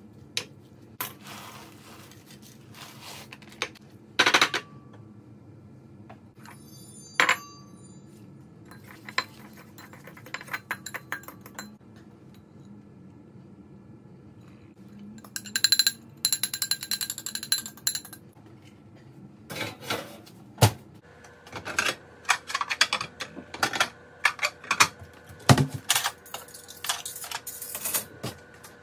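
Casserole-making clatter: a utensil clinking and scraping against a ceramic baking dish and bowls, with scattered knocks, one ringing clink and a rustling stretch midway, over a steady low hum. A faint steady tone comes in about two-thirds of the way through.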